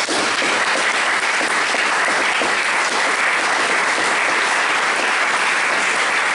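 Audience applauding: dense, steady clapping that holds level, then begins to thin out near the end.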